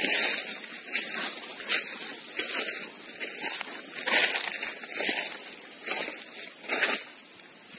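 Rustling and crunching of dry leaves, grass and undergrowth as someone moves through the brush, in uneven bursts about once a second.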